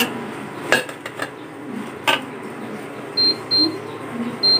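A metal spatula stirring Malabar spinach leaves in an aluminium pot, with a few sharp knocks against the pot. Near the end, two pairs of short, high electronic beeps.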